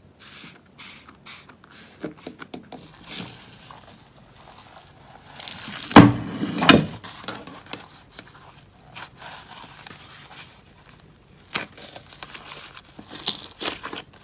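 Slime being handled: a scatter of small clicks, crackles and scrapes, with a louder cluster about six seconds in.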